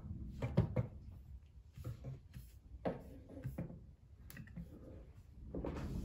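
Scattered light clicks and knocks of handling as a USB-C hub and its cables are moved about on a wooden desk, with a soft rustle near the end.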